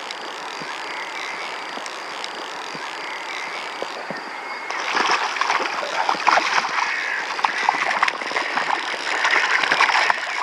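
Steady rush of a flowing river; from about five seconds in, a hooked trout thrashes at the surface, a run of irregular splashes.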